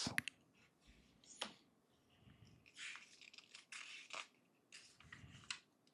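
Faint handling of LEGO plastic pieces: a single light click about a second and a half in, then a few brief rustling scrapes.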